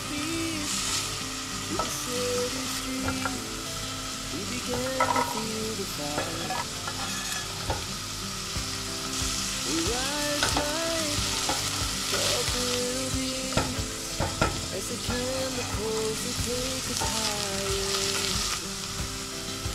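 Diced onion and carrot sizzling in hot oil in a stainless steel pot, stirred with a wooden spatula. The spatula scrapes, taps and squeaks against the pot over a steady frying hiss.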